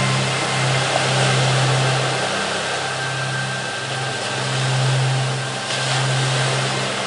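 Background music under the recitation: a low, sustained drone of two held notes that break off and resume every second or two, over a steady rushing noise.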